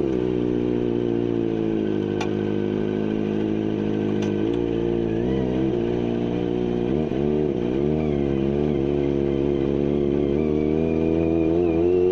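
Kawasaki ZX-25R's 250 cc inline-four idling through a GPR carbon full-system exhaust with no dB killer. It runs evenly at first, then from about halfway is given light blips of throttle that make the note rise and fall.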